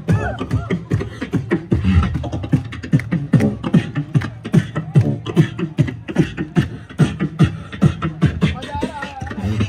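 Beatboxing into a handheld stage microphone: a fast, steady beat of mouth-made kick and snare clicks, with short pitched vocal sweeps in between.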